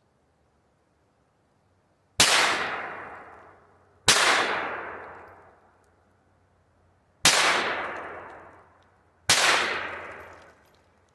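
Four gunshots from a pistol-caliber carbine (sub-gun), fired in two pairs about two seconds apart, each crack ringing out for about a second and a half.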